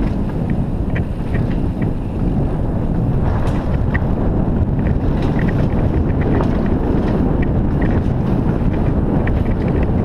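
Wind buffeting an action camera's microphone as a downhill mountain bike rolls fast down a dirt trail, a steady loud rumble. Scattered light clicks and rattles from the bike and tyres over the rough ground run through it.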